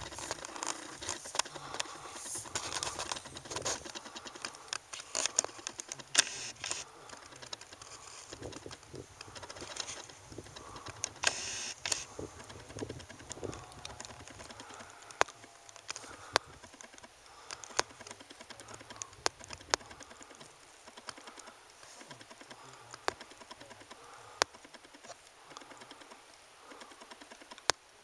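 Handling noise from a handheld camera being panned: scattered sharp clicks and faint rustling, thick in the first half and fewer and further apart later.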